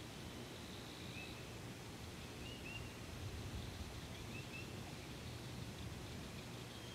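Faint outdoor ambience: a steady low hum and hiss with a few soft, short bird chirps, one about a second in and then two pairs about two and a half and four and a half seconds in.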